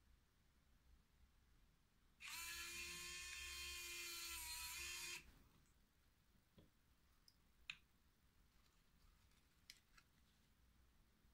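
A small electric motor in the fluorometer's leaf probe whines steadily for about three seconds, the probe's automated dark-adaptation mechanism moving, then stops. Faint clicks follow as the leaf clip is handled.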